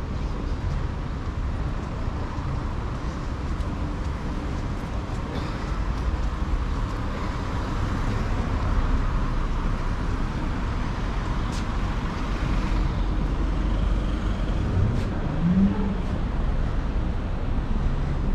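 Road traffic on a city street: cars passing steadily, with one vehicle growing louder and fading away around the middle.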